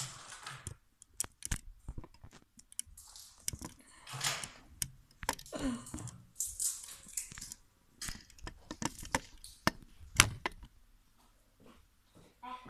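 Hands working toy packaging: irregular crinkling and rustling with scattered sharp clicks and crackles, as a wrapped LOL Surprise-style ball is cut and opened.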